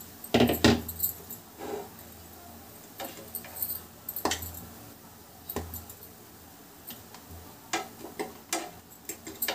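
A metal fork clinking and scraping in a non-stick appe pan as cooked appe are lifted out of the cups, in scattered sharp clicks, a cluster in the first second, then one every second or so.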